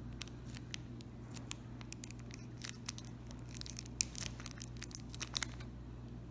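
Thin plastic sachet crinkling and crackling as fingers squeeze the oil out of it: a scatter of sharp little crackles, sparse at first, thickest in the middle and loudest about four seconds in.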